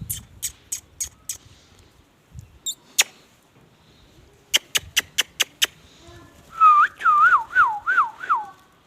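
Runs of quick sharp clicks, then a warbling whistle of about six rising-and-falling notes near the end.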